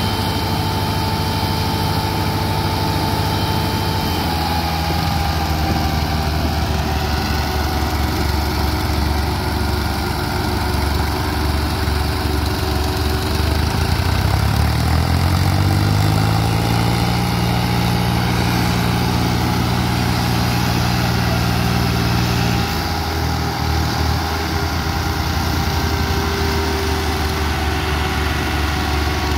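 Two diesel tractor engines running hard under load in a tractor tug-of-war, the tractors hitched back to back and pulling against each other. Partway through, the engine note climbs and holds high for several seconds, then drops back.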